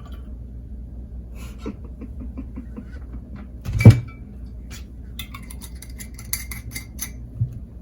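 Glassware being handled: one loud knock about four seconds in with a short ring, then a run of light clinks near the end, as a wine bottle and glass are set down and knocked together.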